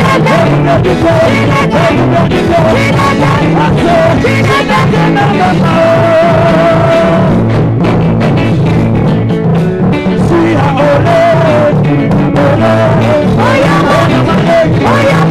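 Loud live gospel band music with a repeating bass line and a wavering lead melody over it.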